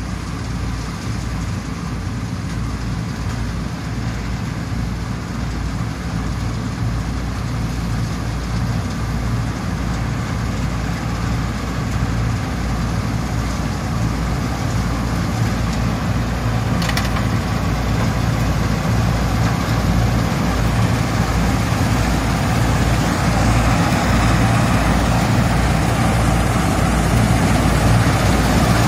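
Vishal 328 combine harvester running as it harvests, its engine and machinery a steady drone that grows gradually louder as it comes closer.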